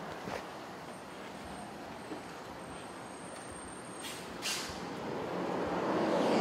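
City street traffic: a steady hum of vehicles with a short, sharp hiss about four and a half seconds in, then a vehicle growing steadily louder as it approaches near the end.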